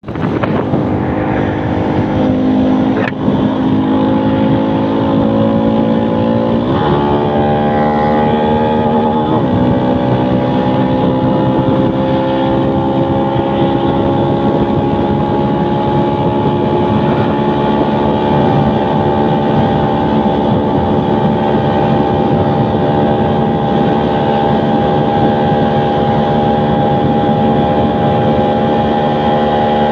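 Hopped-up small motorcycle engine, bored to a 56 mm piston with a performance cam, racing ECU and 14/32 sprockets, pulling hard through three quick gear changes in the first ten seconds. In top gear its pitch then climbs slowly and steadily as the bike gains speed.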